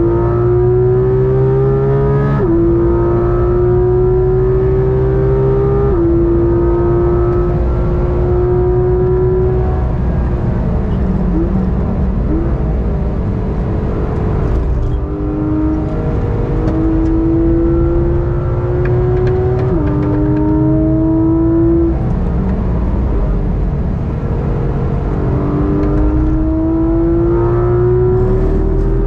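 Porsche 991.1 GT3 RS's naturally aspirated 4.0-litre flat-six heard from inside the cabin under hard acceleration. The pitch climbs through the revs and drops sharply at quick PDK upshifts, about two and six seconds in and again near twenty seconds. Between about ten and fifteen seconds it goes off the throttle for a corner, then pulls again, climbing near the end.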